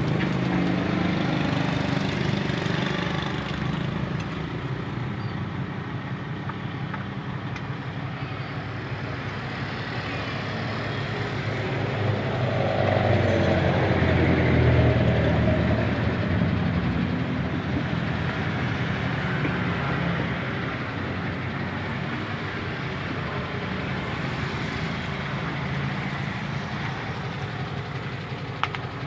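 A heavy vehicle's engine running steadily, louder for a few seconds around the middle and then easing back.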